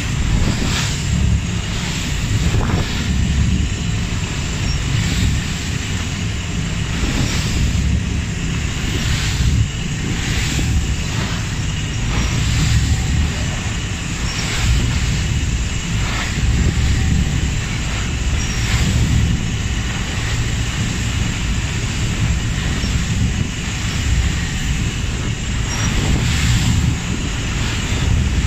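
Inter-island ferry under way at sea: a steady low engine rumble with spray rushing off the hull and wind buffeting the microphone, broken by irregular short splashes.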